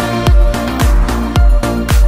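Electronic dance remix music: a deep kick drum that drops in pitch, nearly two beats a second, under sustained synth chords.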